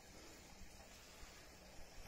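Near silence: faint background hiss with a couple of soft ticks.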